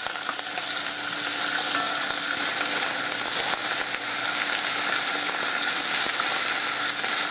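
Chopped vegetables and garlic sizzling steadily in hot oil in a pot, stirred now and then with a wooden spoon.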